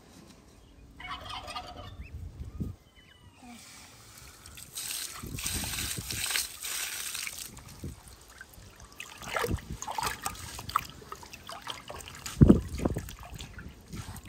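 Water sloshing and splashing in a basin as a large salmon is washed and rubbed by hand, with a hissing wash of water for a couple of seconds in the middle and a loud splash about twelve seconds in.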